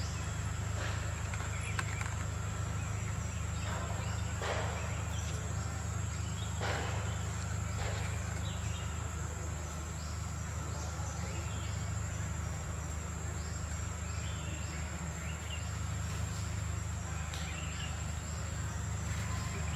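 Outdoor ambience: a steady high-pitched insect drone over a constant low rumble, with a few brief scratchy sounds.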